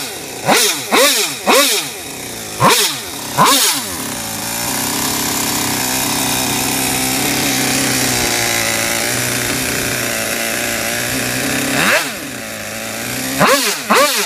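RCMK CR600B 57cc twin-cylinder two-stroke engine with a tuned expansion pipe, revved in about five quick throttle blips. It then runs at a steady speed for about eight seconds and is blipped three more times near the end.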